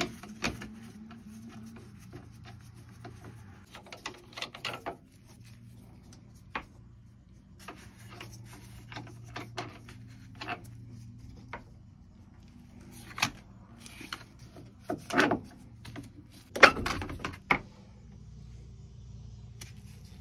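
Scattered plastic knocks and clicks as a battery box's hold-down frame is worked loose and lifted off a boat battery, the loudest near the end, over a steady low hum.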